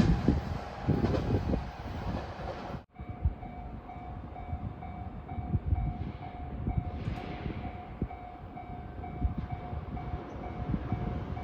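A 521 series electric train runs over the level crossing with loud rail rumble for the first few seconds, then cuts off suddenly. After that the crossing's warning bell rings on, a steady pulsing electronic tone, over low knocks and rumble as the next train approaches.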